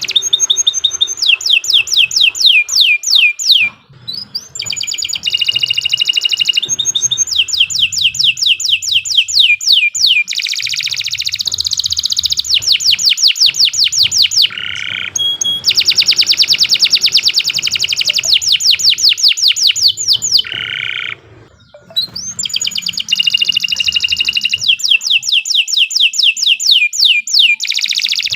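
Domestic canary singing a long song made of rapid rolling trills: fast runs of repeated, falling notes and buzzy rolls that change from phrase to phrase. The song breaks off briefly about four seconds in and again about twenty-one seconds in.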